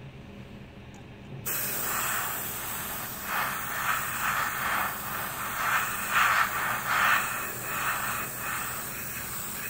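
Gravity-feed airbrush spraying: a sudden hiss of air and paint starting about a second and a half in, swelling and easing in repeated short pulses as the trigger is worked.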